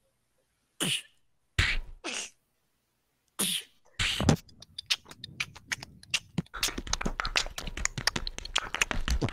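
A person beatboxing into a microphone: a few separate vocal drum sounds, then from about four seconds in a fast, dense run of clicks.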